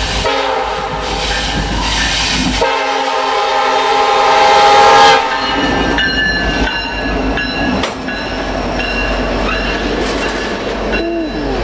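Diesel locomotive air horn blowing long blasts, with brief breaks near the start and about two and a half seconds in, then cutting off about five seconds in. After it, the train rolls by with wheels clicking over the rail joints.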